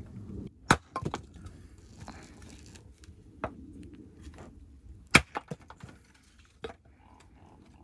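Hatchet striking and splitting firewood on a log chopping block: a handful of sharp wooden chops at uneven intervals, the loudest about a second in and about five seconds in.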